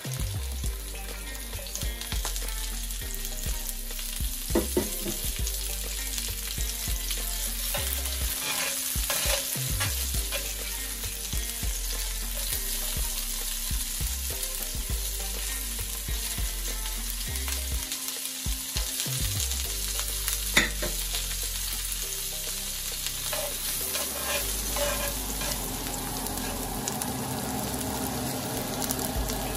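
Okra and onion sizzling in hot oil in a cast-iron skillet, a steady frying hiss broken by a few sharp clicks, the loudest about two-thirds of the way through.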